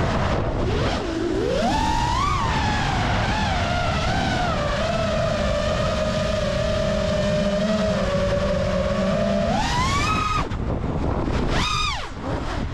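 FPV quadcopter's brushless motors and propellers (Ethix Stout 2306 1750 kV) whining in flight, the pitch rising and falling with the throttle. It holds fairly level through the middle, then climbs sharply about ten seconds in and gives a quick punch near the end. Air rushing over the onboard microphone underneath.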